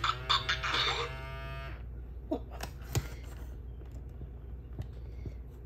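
Mattel D-Rex robotic dinosaur toy giving a drawn-out, low animal-like call from its speaker for a little under two seconds, followed by a few sharp clicks.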